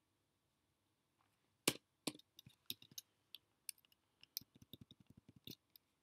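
Faint, irregular clicking of computer keyboard keys as a line of code is typed. The clicks start about a second and a half in, with the first one the loudest, and come in quick runs until near the end.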